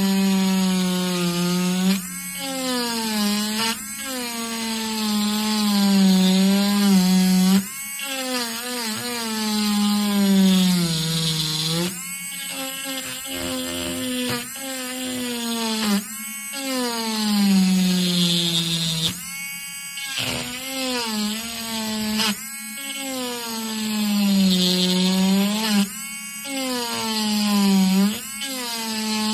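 Handheld pen-style rotary engraving tool grinding into cured epoxy resin: a high motor whine whose pitch sags as the bit bites and springs back up, over a gritty grinding hiss. It breaks off briefly every few seconds.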